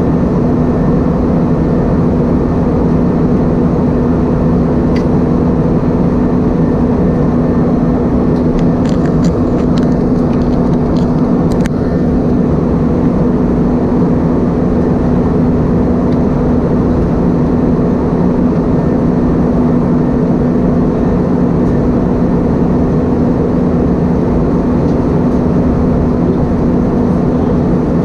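Steady cabin noise inside an Airbus A320-232: the drone of its IAE V2500 turbofan engines and airflow, with an even hum and a few faint clicks in the middle.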